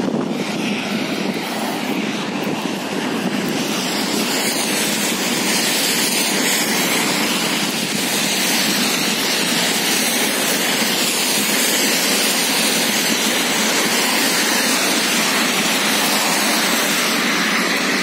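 Steady hiss of traffic on a wet multi-lane avenue, tyres swishing through water on the asphalt, growing a little louder a few seconds in.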